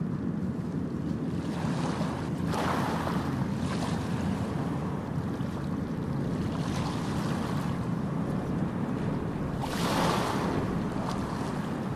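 Low, steady rumble of a large passenger ship's engines with water churning at the stern and wind on the microphone. The rushing noise swells about two and a half seconds in and again near ten seconds.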